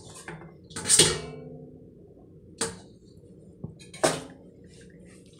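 Kitchen handling sounds while a raw octopus is worked on a cutting board: three short clatters, about a second in, near the middle and later on. The first is the loudest and rings briefly.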